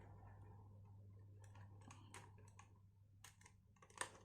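Faint scattered clicks and taps of a plastic RC truck being handled, with one louder click about four seconds in, over a low steady hum.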